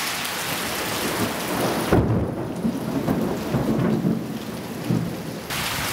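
Steady rain falling, then about two seconds in a sudden loud clap of thunder that rolls on as a low rumble for about three seconds.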